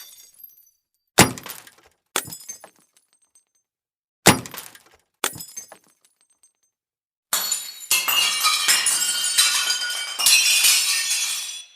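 Glass breaking in a run of separate smashes: four short crashes with tinkling shards over the first six seconds. Then a longer stretch of shattering and falling fragments lasts about four seconds near the end.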